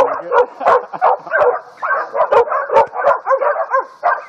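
Four-month-old puppies barking and yipping in quick, overlapping calls, several a second, without a break.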